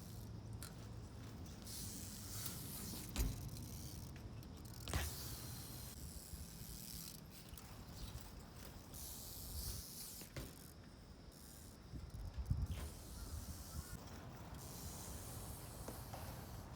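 A 24-inch street-trials bike being ridden on hard ground: tyres hiss as it rolls, broken by a few sharp thumps of hops and landings, the loudest about three, five and twelve and a half seconds in.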